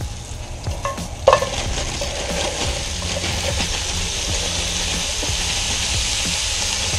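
Onions and carrots sizzling in hot oil in a cast-iron Dutch oven over charcoal. A sharp metal clank comes about a second in, and then the sizzle grows louder and holds steady.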